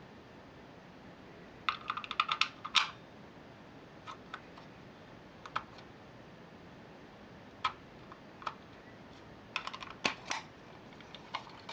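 Short, sharp clicks: a quick run of about a dozen a couple of seconds in, then single clicks a second or more apart, and another quick run near the end.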